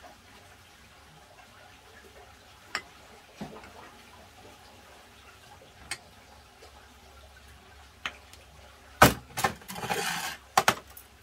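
Kitchen handling sounds: a few light clicks scattered through, then a louder knock about nine seconds in, followed by about a second of rushing noise and two more sharp clicks near the end.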